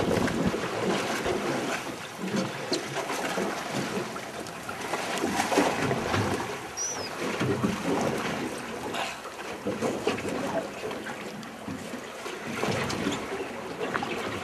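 Wind blowing on the microphone and sea water slapping and washing against the hull of a small boat, rising and falling in waves.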